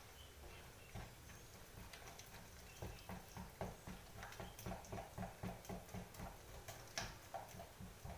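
Hands mixing a thick gram-flour batter in a bowl: faint, quick rhythmic strokes, about four a second, starting a few seconds in.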